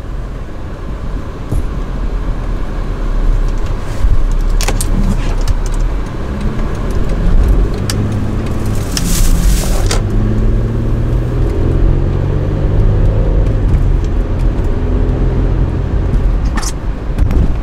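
Car engine and road noise heard from inside the cabin while driving, the engine note climbing in pitch in steps as the car accelerates. A few light clicks and rattles come through over the rumble.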